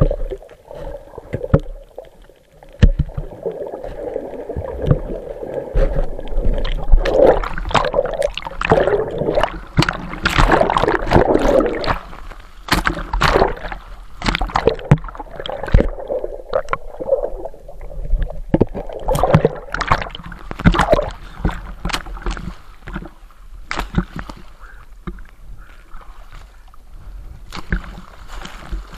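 Water churning and splashing with irregular knocks against the camera, heard from underwater and close up, as a diver grapples with a catch that is fighting back.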